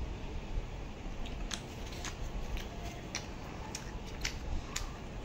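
Someone chewing food close to the microphone: a run of short, sharp crunches and mouth clicks, about two a second, starting about a second in, over a low steady rumble.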